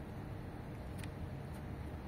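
Steady low outdoor background rumble, with a faint click about a second in.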